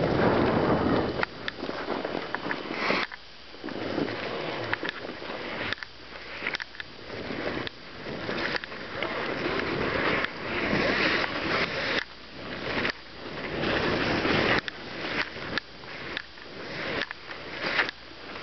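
Wind buffeting the microphone in gusts that swell and drop every second or two, with many short irregular clicks and knocks mixed in.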